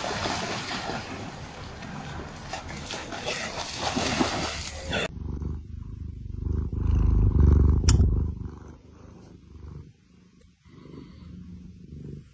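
Water splashing and churning as a dog runs through shallow floodwater, cut off abruptly about five seconds in. Then a cat purring right at the microphone, a loud low rumble that fades after about three seconds.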